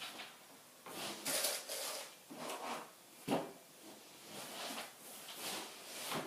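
Someone rummaging through belongings in a search, irregular rustling and handling noises with knocks, the sharpest about three seconds in.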